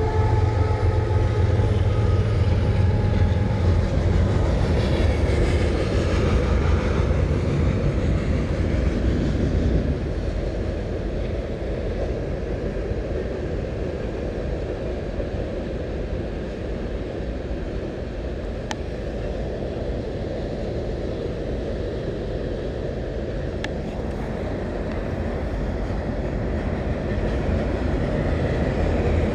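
Train passing, a steady deep rumble, with the chord of its horn sounding for about the first seven seconds. The rumble eases slightly about ten seconds in and swells a little again near the end.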